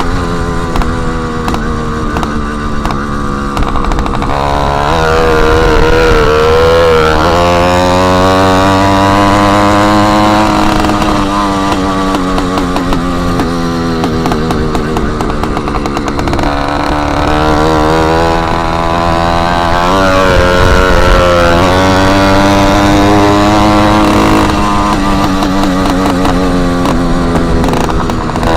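Motorized bicycle engine running loud with its exhaust tip removed, the revs rising and falling several times as it is ridden.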